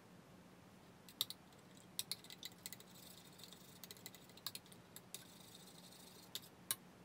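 Raw eggs being beaten in a small ceramic bowl with a metal utensil: faint, irregular clicks of metal tapping against the bowl, with a soft rapid swishing through the middle.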